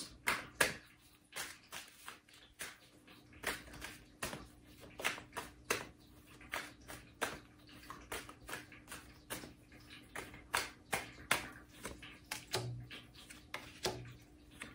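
A deck of tarot cards being shuffled by hand: a long run of soft, irregular card slaps and flicks, one to three a second.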